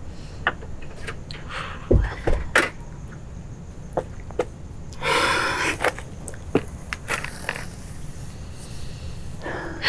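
Footsteps on a concrete doorstep, with a few low thuds about two seconds in, then a rustling scrape about five seconds in as a person sits down on the step, and another short rustle near the end.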